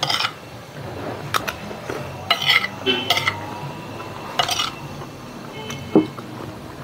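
Spoon and fork clinking and scraping against a plate and bowl while eating, several separate clinks, with a dull knock, the loudest sound, about six seconds in.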